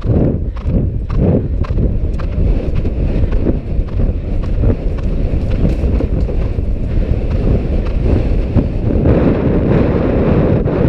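Horse galloping on grass: rhythmic hoofbeats, clearest in the first couple of seconds, under steady wind buffeting the rider-mounted camera's microphone, which grows louder near the end.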